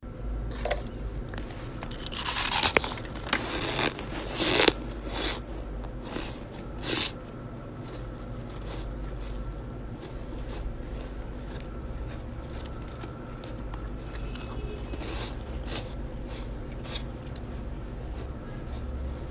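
Chest-freezer frost being scraped and crunched: a few loud crunchy scrapes in the first five seconds, then fainter scattered crunches and clicks.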